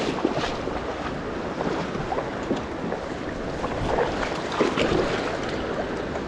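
Fast river current rushing and splashing, with irregular small splashes throughout.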